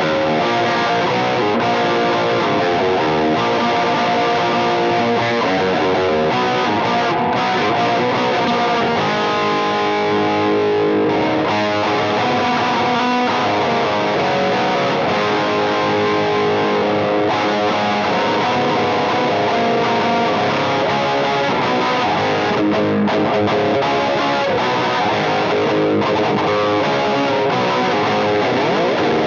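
Distorted electric guitar in E-flat standard tuning, played through a Marshall 2525 Mini Jubilee 20 W amp pushed by a Boss SD-1 overdrive with a touch of Boss DD-8 delay, giving a heavy growl. Riffs and sustained notes run without a break.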